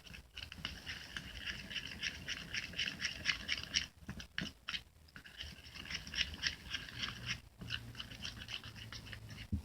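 Spoon stirring a thick, creamy mixture of PVA glue, liquid soap and lotion in a bowl: a fast, continuous run of small sticky clicks and scrapes, broken by a few short pauses.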